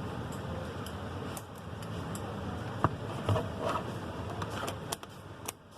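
Steady background hum with a few light clicks and taps of small items being handled on a workbench.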